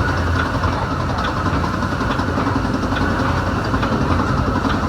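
Diesel-hauled Metra BNSF commuter train running: a steady low rumble with faint ticks about once a second.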